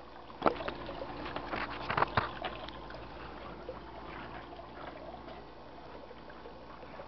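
Shallow stream water trickling and splashing right at the microphone, with a few sharp knocks and rattles in the first two and a half seconds, the loudest about half a second and two seconds in.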